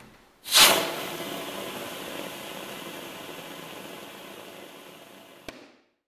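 Beam central vacuum wall inlet pulling air: a sudden loud rush as suction starts through the opened inlet, settling into a steady hiss that slowly fades. Near the end a sharp click comes as the inlet door snaps shut, and the hiss stops.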